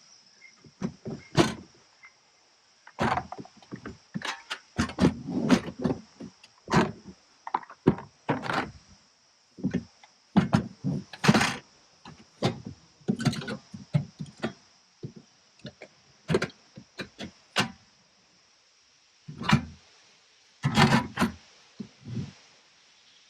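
Camp cooking gear being handled and set out: irregular knocks, clunks and rattles in quick runs with short pauses, over a steady faint high hiss.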